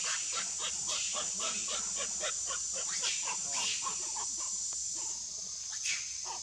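Forest ambience: a steady high-pitched insect drone under a busy run of short animal calls, several a second.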